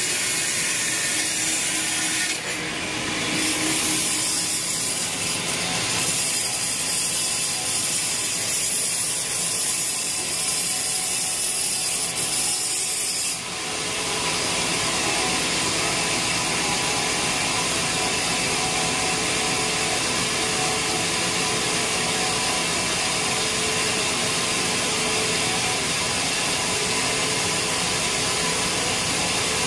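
Sawmill bandsaw blade running through a large teak log, ripping it into boards: a steady, loud sawing noise. It dips briefly about two seconds in and again about thirteen seconds in, then runs on evenly.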